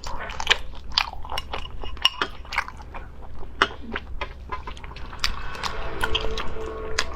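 Close-up chewing and biting of crunchy food, with repeated sharp crunches. Music with a steady tone comes in near the end.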